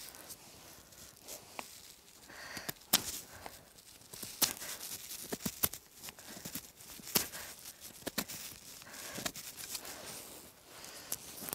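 Knife working dry birch kindling: irregular sharp cracks, snaps and tearing sounds as wood is shaved and broken.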